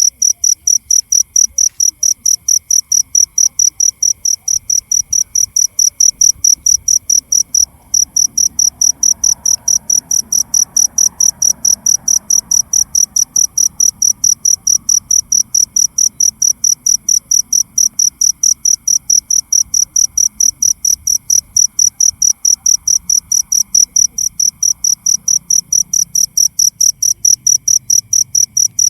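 Cricket chirping: a shrill, high-pitched pulsed call repeating steadily about three to four times a second, with a faint continuous insect hum behind it.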